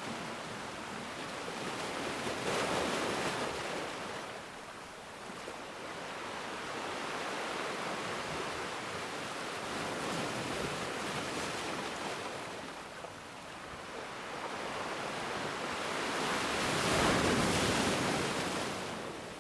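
Ocean waves washing ashore in slow swells, with a big wave breaking near the end.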